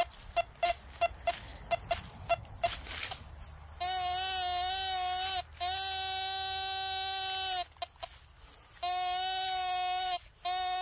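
Metal detector beeping in short, even pips, about three a second, as the coil sweeps over a buried target. From about four seconds in it gives a steady, buzzy held tone while pinpointing, cutting out three times before coming back.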